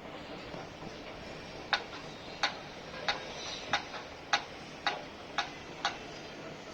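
Eight sharp, evenly paced knocks, like hammer blows, about two every second and a little quicker towards the end, over steady construction-site background noise.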